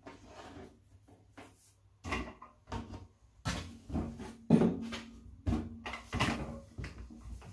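A series of knocks and bumps, starting about two seconds in and loudest near the middle: a bowl and a rolling pin being set down and moved on a table while pastry dough is cut into rounds.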